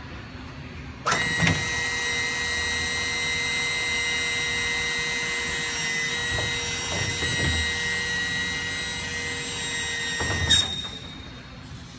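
A TBM 850's electric hydraulic landing-gear pump running during a gear test with the plane on jacks. A steady high whine starts abruptly about a second in and runs for about nine seconds, with a few dull clunks in the middle. It cuts off with a knock near the end.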